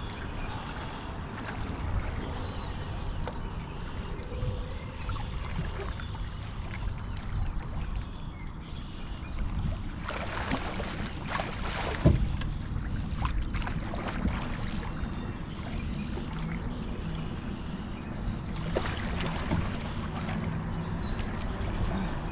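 A hooked blue catfish thrashing and splashing at the surface beside the boat, in two spells, one of them with a sharp knock. Under it runs a steady low rumble.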